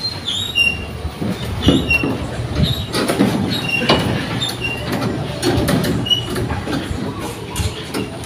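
Steel rebar being tied with wire and pliers: irregular clicks, knocks and metallic rattles, with short high chirps throughout.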